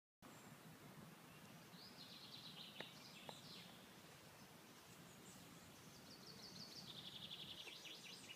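Faint outdoor ambience with songbirds singing rapid, high repeated trills in two stretches, one starting about two seconds in and a longer one in the second half. Two faint ticks come a little after two and a half seconds.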